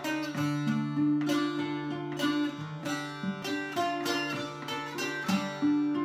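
Bağlama and acoustic guitar playing an instrumental Turkish folk tune together: a quick run of plucked melody notes over low notes that ring on underneath.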